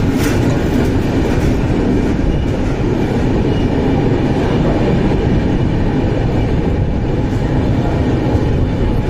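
Passenger train of the Gitanjali Express moving at low speed, a steady loud rumble of wheels on the rails heard from on board the coach.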